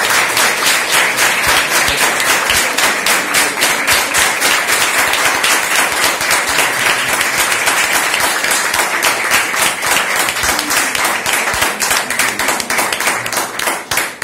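Audience applauding, a dense run of many people clapping that eases off slightly near the end.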